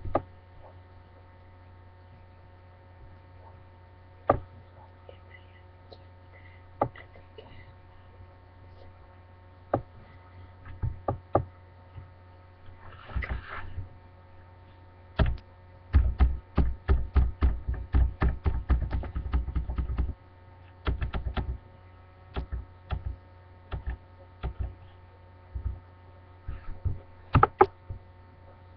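Steady electrical mains hum with scattered sharp taps and knocks, thickening into a rapid run of knocks lasting about five seconds just past the middle.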